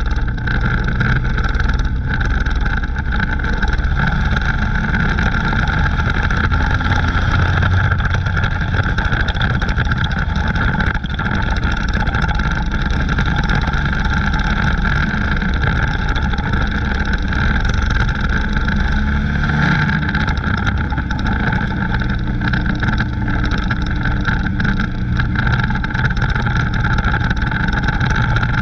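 Dirt-track race car's engine running hard at racing speed, heard from inside the cockpit, a loud steady drone whose pitch rises and falls slightly.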